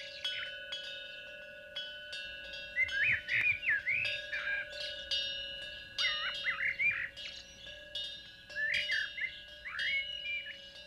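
Birds chirping in short bursts of sliding notes every few seconds over a steady ringing chime tone, with faint light ticks.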